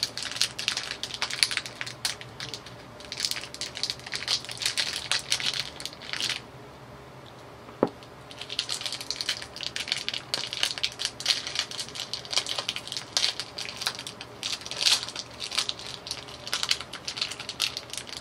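Plastic snack wrapper crinkling and rustling as it is handled and pulled open, in irregular bursts. About six seconds in the crinkling stops for roughly two seconds, broken by a single sharp click, then starts again and keeps going.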